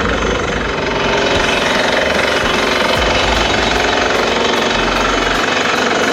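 Water-bore drilling rig running while drilling the bore: a loud, steady mechanical din with a fast, even pounding.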